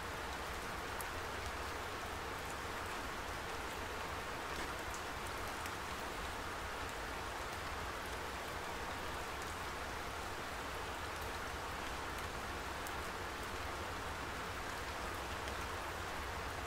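Steady, even hiss of water with a few faint scattered ticks and no distinct splashes.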